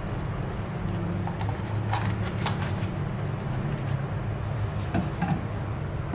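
Bottles being handled and set down on a kitchen counter: a few light knocks and clicks about two seconds in and again near five seconds, over a steady low hum.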